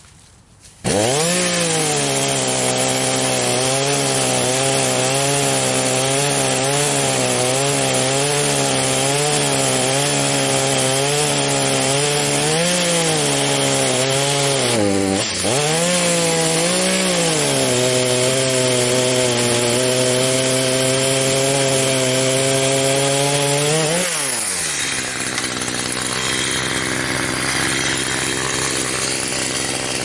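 Echo 350c two-stroke chainsaw cutting a felled ash log: it comes in suddenly about a second in, its revs surging up and down in quick repeated swells, dipping briefly midway. In the last few seconds the pitch falls and the sound turns rougher as the chain works under load.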